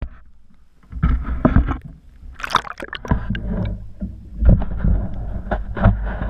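Water sloshing and gurgling around an action camera as it dips under the surface, with a low rumbling wash and irregular splashes, the sharpest about two and a half seconds in.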